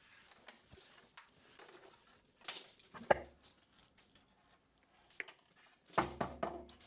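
Bench handling noises from working on a small plastic valve connector and wire: faint rustling, one sharp knock about three seconds in, a light click, then a quick cluster of several knocks near the end.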